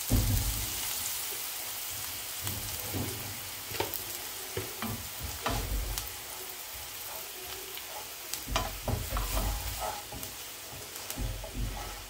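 Chopped onion and garlic sizzling in oil in a frying pan as flour is tipped in and stirred with a wooden spatula, which scrapes and taps against the pan again and again. The flour is being fried into a roux for a sauce.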